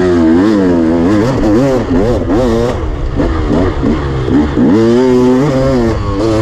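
Dirt bike engine revving up and down again and again as it is ridden, the pitch climbing and dropping about once a second as the throttle is worked.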